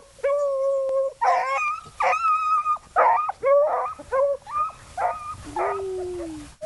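A pack of beagle hounds baying, several voices overlapping: first one long held bawl, then a run of shorter yelping cries, and near the end one long howl that slowly falls in pitch.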